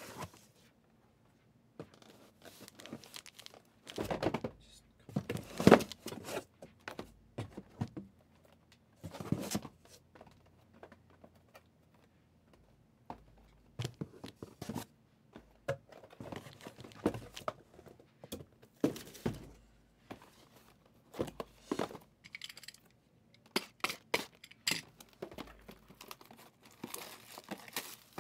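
Trading card packaging being torn open and handled: irregular bursts of tearing and crinkling wrapper and cardboard, with short pauses between.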